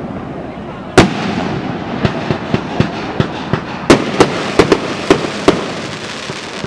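Fireworks going off: a loud bang about a second in, then scattered pops over continuous crackling, and a quick run of about six sharp bangs between about four and five and a half seconds in.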